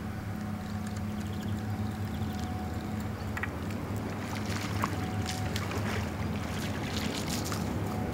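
A motor running steadily, heard as a low even hum, with a few light clicks and two short high chirps over it in the middle.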